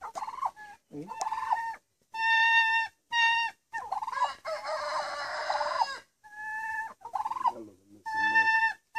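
Domestic turkey hens squabbling and calling: a string of short, steady-pitched calls, one every half second to a second, with a longer warbling call about halfway through.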